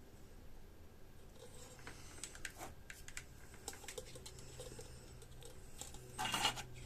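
Small scattered clicks and taps of electronic components and hand tools being handled on a workbench while fitting parts to a circuit board, with a brief louder rustle near the end.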